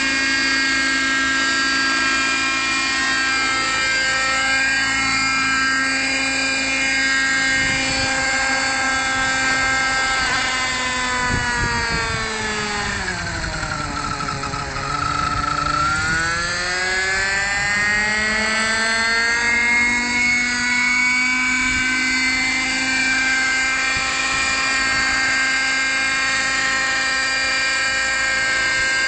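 Radio-controlled model helicopter's motor and rotors whining steadily. About halfway through the pitch drops as the helicopter settles onto the ground, then climbs back up as it spools up and lifts off again.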